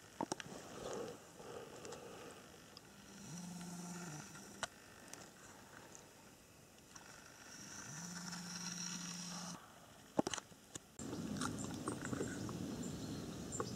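Snoring: twice, a long, steady-pitched snore about a second and a half long, four to five seconds apart. About ten seconds in come a few sharp clicks, then a rustling haze.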